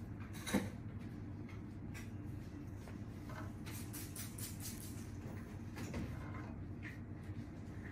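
Steady low hum with scattered faint clicks and rustles, and one sharper click about half a second in.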